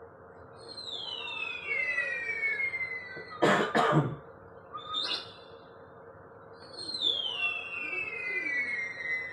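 A high screeching bird cry, falling in pitch over about a second and a half, sounds twice. Two short loud bursts fall between the cries.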